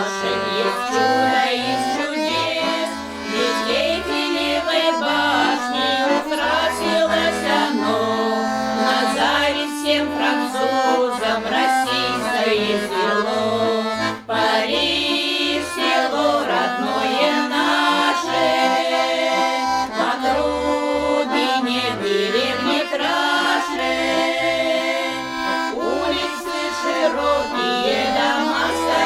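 Accordion playing a folk tune, with held chords over a regular pattern of low bass notes.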